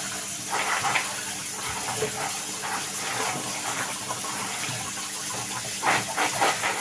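Kitchen tap running into a bowl of blanched almonds as hands rub them under the stream to slip off their skins. Near the end the bowl is tipped and the water splashes out.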